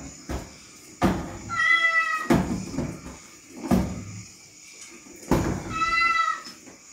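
A cat meowing twice, about four seconds apart, with several dull thumps in between.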